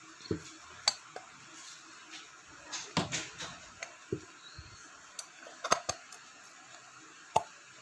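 Scattered light metal clicks and knocks as a finned motorcycle cylinder block is handled and slid down over a piston fitted with its rings.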